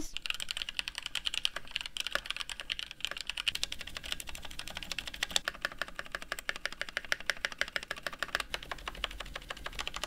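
Rapid typing on a Cooler Master CK721 mechanical keyboard with stock red linear switches and lubed stabilizers: a steady run of keystroke clacks with space bar and Enter presses mixed in. The reviewer judges it pretty good for stock, with the space bar a little bit hollow.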